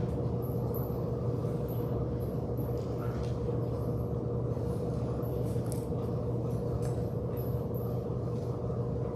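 Steady low room hum and rumble with a faint constant tone, broken only by a few soft knocks.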